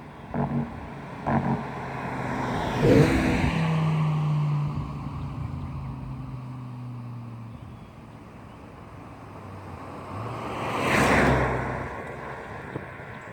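2008 BMW M6's 5.0-litre V10 driving past, loudest about three seconds in, its engine tone dropping as it moves away. A second vehicle pass swells and fades near the end.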